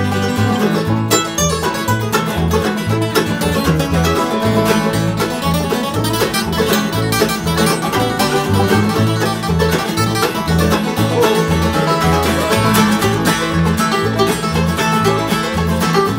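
Acoustic bluegrass band playing together: banjo, mandolin and acoustic guitars picking over a steady upright bass pulse.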